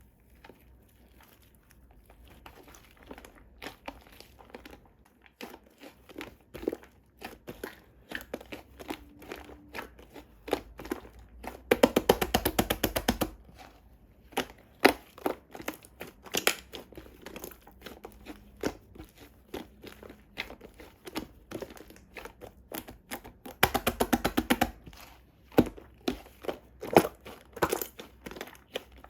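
Handling of an Oreo cookies-and-cream macaron with a biscuit on top: crinkling and tearing of its wrapping, with crunchy crackles and scattered sharp clicks. Two stretches of fast, dense crackling come about twelve seconds in and again near twenty-four seconds, and these are the loudest parts.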